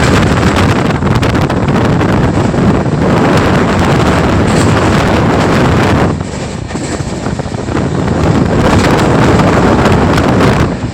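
Wind buffeting the microphone over the running noise of a moving train: a loud, steady rush that eases about six seconds in, then builds again.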